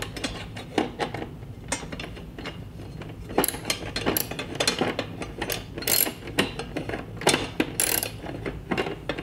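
Socket ratchet wrench clicking in irregular runs while an M6 screw is worked on a metal TV wall-mount bracket, with light metal clinks and rattles from the bracket and tool.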